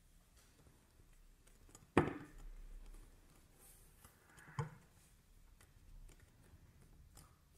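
Hands working soft polymer clay on a ceramic tile: mostly quiet, with a sharp knock about two seconds in followed by faint scuffing, and a smaller knock a couple of seconds later.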